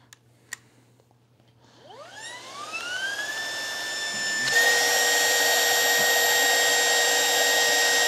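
Lupe Pure Cordless stick vacuum's motor spinning up after a couple of clicks, its whine rising in pitch and settling to a steady high tone. About halfway through it abruptly gets louder, with a rush of air and an added lower tone, as the open end of the gauge adapter is blocked for a sealed-vacuum reading.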